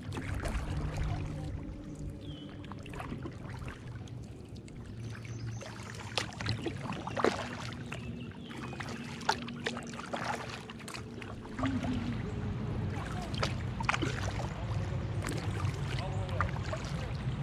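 Kayak paddling: paddle strokes in the water, with a few sharp knocks scattered through.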